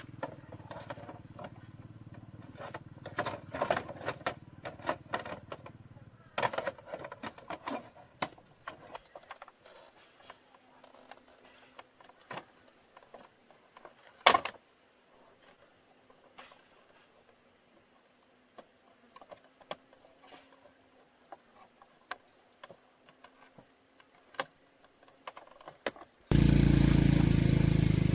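Scattered clicks and knocks of hand work on metal, with a steady high-pitched whine behind them; a low hum dies away about nine seconds in, and near the end a loud machine starts abruptly.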